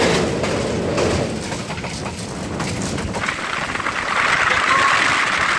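Running noise of a train heard from on board, its wheels rolling over the rails with a steady rush and faint clicks. About three seconds in, a louder hiss comes up as it passes from a steel girder bridge onto ballasted track.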